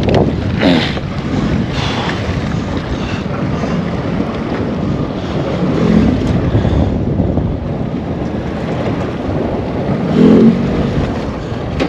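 Wind buffeting the microphone on an open fishing boat, over a steady wash of water. A louder low buffet comes about ten seconds in.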